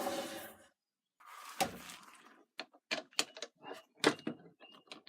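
Record CL3 wood lathe's motor humming as it runs down and stops within the first second. A thud follows about a second and a half in, then a run of light clicks and knocks.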